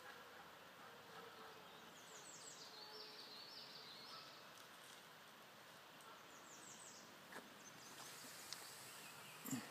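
Quiet woodland ambience in which a songbird sings a short run of quick, high, falling notes twice, a few seconds apart. A brief low thump comes near the end.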